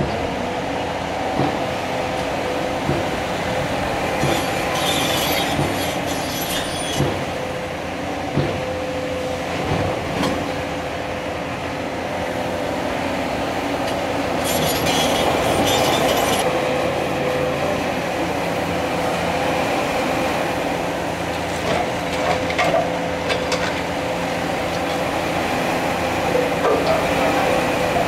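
Cat 336 Next Generation hydraulic excavator working a demolition grab: the diesel engine and hydraulics run steadily under a scatter of knocks and crunches from concrete and masonry being broken and dropped. Twice, a few seconds in and about halfway through, comes a spell of high-pitched screeching.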